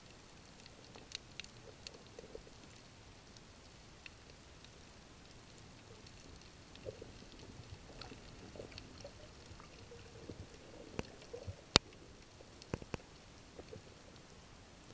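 Underwater ambience: a faint steady hiss with scattered sharp clicks and crackles, and one much louder click about twelve seconds in.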